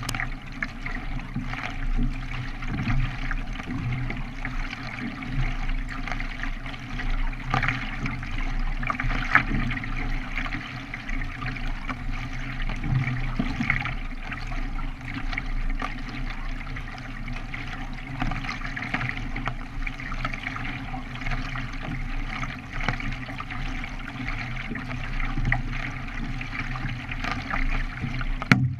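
Continuous water splashing and trickling from a K1 racing kayak being paddled, with small irregular splashes throughout.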